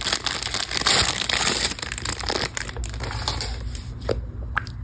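Plastic packaging crinkling and rustling as it is handled, busiest for the first two or three seconds, then quieter with a few light clicks.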